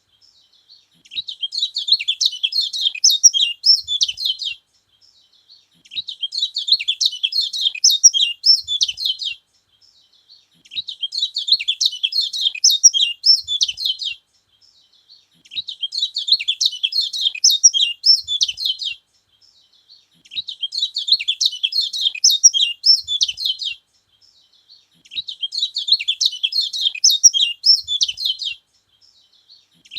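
Kecial kuning singing: repeated bursts of rapid, high-pitched chattering twitters, each about three seconds long, with short pauses in between.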